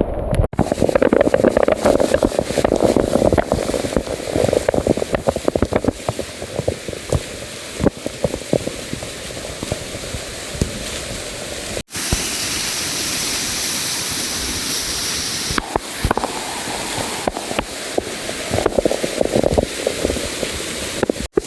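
Waterfall water rushing and splashing, with rumble on the microphone, in several short clips cut together. About halfway through it changes for a few seconds to a brighter, hissing rush.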